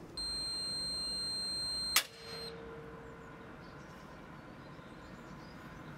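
A high, steady electronic beep lasting nearly two seconds, cut off by a sharp click, after which a lower tone briefly fades away.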